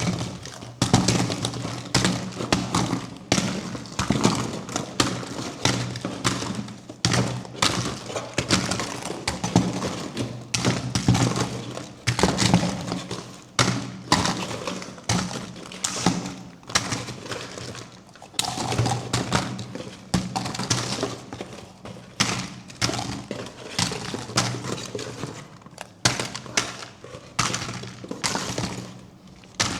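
A surprise egg being handled and opened: a busy run of taps, knocks and cracks, several a second, with a faint steady low hum underneath.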